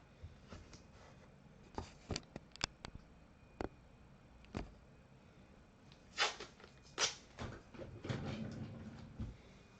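Scattered light clicks and taps, then two short rustling swishes about six and seven seconds in, followed by a second or so of rustling.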